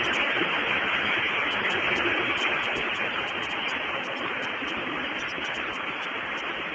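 Steady hiss of noise without any clear pitch or distinct events, easing slightly in level partway through.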